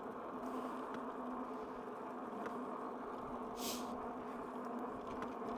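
Fat-tire e-bike's rear hub motor whining steadily under pedal assist while cruising, with a brief hiss about three and a half seconds in.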